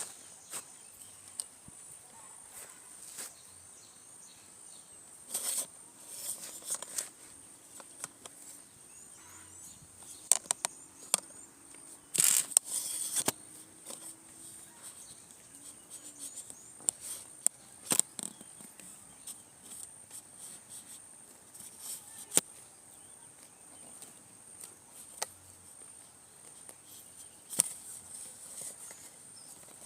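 Outdoor rural ambience with a steady high-pitched insect drone, broken by scattered clicks and knocks and a few short rustling bursts, the longest about twelve seconds in.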